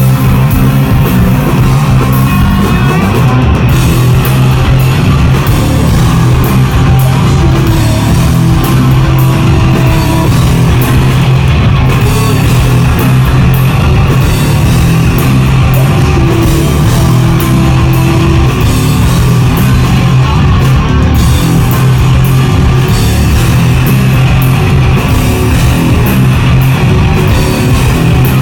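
Rock band playing live and loud, with electric bass, guitar and drum kit. The sound is dense and steady, heavy in the low end, as heard close to the stage.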